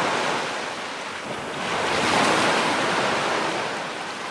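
Ocean surf washing in, a steady rush of water that swells twice, once at the start and again about two seconds in, then eases off near the end.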